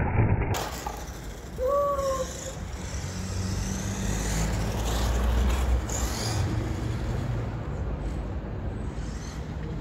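Steady low rumble of road traffic, with a short rising-and-falling whistle-like tone about two seconds in.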